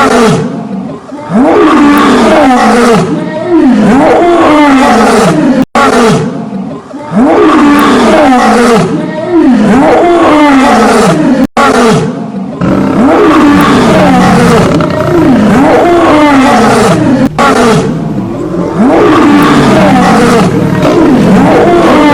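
Lion roaring: a loud run of roars that each rise and fall in pitch, about one a second, broken twice by an abrupt instant of silence.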